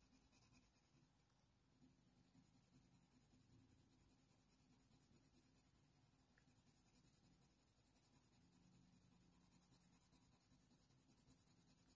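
Near silence, with the faint, soft scratching of a Polychromos coloured pencil stroking across hot-press watercolour paper.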